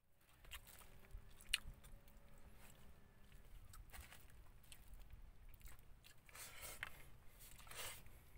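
Faint crinkling and rustling of a brown-paper and plastic food wrapper handled by fingers, with close chewing and crunching of food. The crinkles come as scattered short crackles, thickening into longer rustles near the end.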